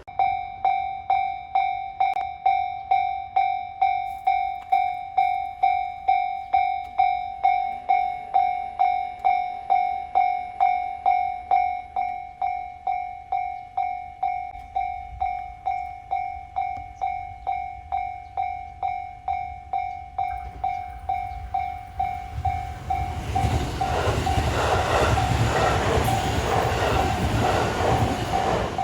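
Japanese level-crossing warning bell starting suddenly and clanging steadily, about one and a half strikes a second. From about 22 seconds in, a train passes over the crossing and its rushing noise is louder than the bell, which keeps sounding underneath.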